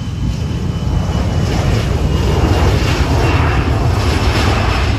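Airliner's jet engines at takeoff power: a loud, deep rumble that grows over the first couple of seconds and then holds.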